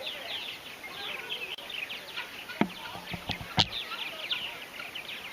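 Purple martins chattering in a colony: a dense, continuous stream of many short overlapping chirps. Two sharp knocks break in around the middle, the second the loudest.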